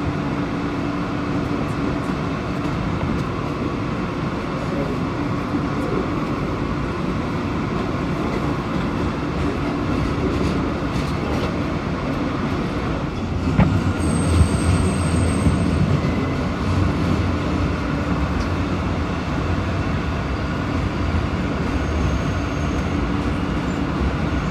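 Alstom R160A New York City Subway car running along the rails, heard from inside the car: a steady rumble of wheels and running gear. About halfway through there is a sharp knock, then the low rumble grows louder, with a brief high-pitched wheel squeal.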